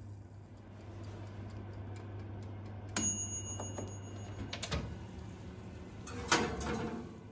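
Dishes and utensils being handled. About three seconds in comes a sharp clink that rings for a moment, followed by a few lighter knocks, then a louder clattering rustle near the end, over a low steady hum that stops about halfway through.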